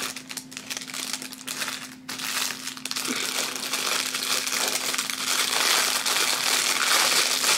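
Thin plastic packaging bag crinkling as it is handled and opened. The rustle grows denser and louder from about two seconds in.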